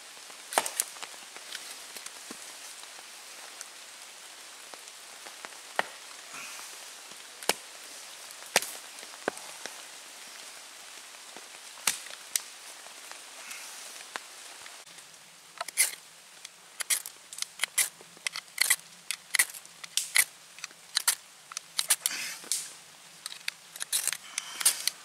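Knife being batoned through firewood with a wooden baton: a handful of separate sharp wooden knocks over the first half. From about halfway on, a quick run of short scraping strikes of a knife spine on a ferro rod, throwing sparks onto tinder to light a fire.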